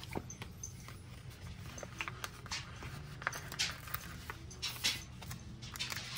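Sticker sheets and paper being handled and peeled on a desk: scattered crinkles and light taps, the loudest about three and a half and five seconds in, over a steady low hum.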